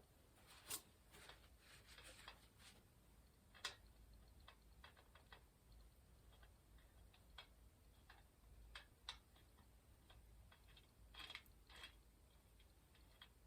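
Faint, irregular light clicks and taps of small metal parts and tools being handled, a few slightly louder ones scattered through, over a faint low hum.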